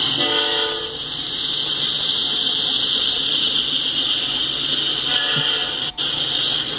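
BNSF freight train rolling past with a steady hiss of wheels on rail as the locomotives give way to boxcars. A locomotive air horn sounds a short chord just after the start and a second, fainter short blast about five seconds in. The sound cuts out for a moment near the end.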